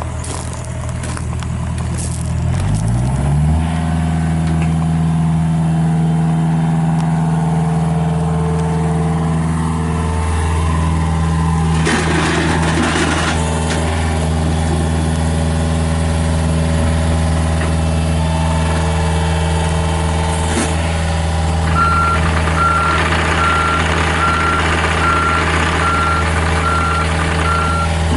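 John Deere 50G mini excavator's diesel engine running; about three seconds in its speed rises from idle to a higher, steady pitch. There is a brief hiss around the middle, and over the last six seconds a travel alarm beeps evenly as the machine starts to move.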